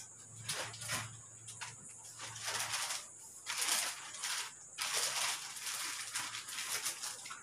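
Crickets chirring steadily in the background, with a series of irregular bursts of rustling over them, each lasting up to about a second.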